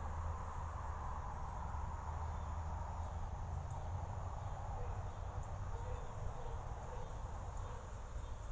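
Outdoor ambience picked up by a trail camera's microphone: insects chirring steadily over a low rumble.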